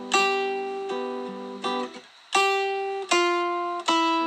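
Background music of strummed acoustic guitar chords. A new chord strikes about every three-quarters of a second and fades, with a brief break about two seconds in.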